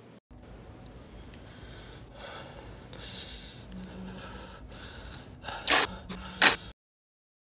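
A person breathing harder and faster, ending in two sharp, loud gasps close together, as with rising anxiety. The sound cuts off suddenly into silence.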